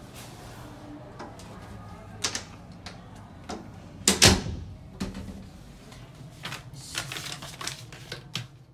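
Scattered clicks and knocks, the loudest about four seconds in, and a stretch of rustling near the end, over a steady low hum.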